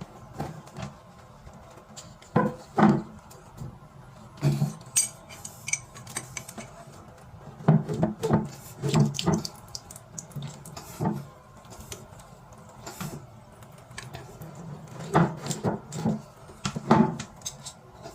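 Hard metallic clinks and knocks of plumbing fittings and hand tools being handled during a bidet and faucet installation, coming in short clusters of a few strikes with pauses between.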